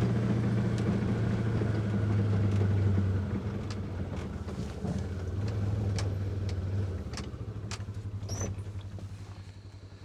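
Engine of a Ranger side-by-side utility vehicle running while driving. It eases off about three seconds in and settles to an even, pulsing idle near the end, with scattered clicks and rattles.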